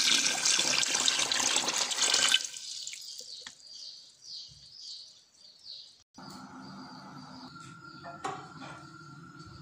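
Water poured in a stream into a pot of sugar to make syrup, splashing steadily and stopping about two and a half seconds in. After that comes a quieter steady hum with a held high tone.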